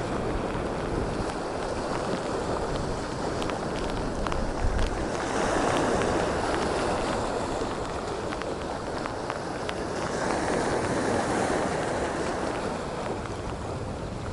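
Storm wind and sea: a steady rushing noise that swells twice and eases, with a few faint ticks.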